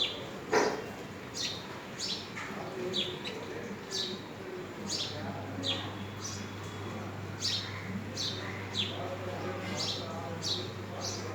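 Small birds chirping over and over, short high notes that each fall in pitch, about one or two a second. A single sharp knock about half a second in.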